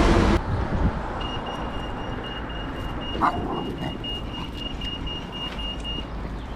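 A vehicle passes close by and fades out in the first half-second. Then an electronic beeper sounds a rapid, high, steady beeping for about five seconds beside the road traffic, with a brief short call about three seconds in.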